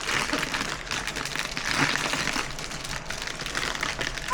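Plastic packaging crinkling and rustling in uneven bursts as a small toy figure and its tiny plates are unwrapped by hand.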